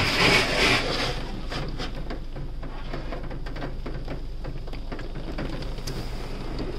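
Automatic car wash spraying water onto the car, heard from inside the cabin: a loud rush of spray for about the first second, then quieter patter and dripping on the glass over a steady low hum.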